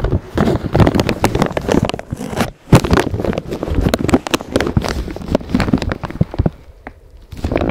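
Blizzard wind gusting against the microphone in uneven rumbling buffets, easing off near the end.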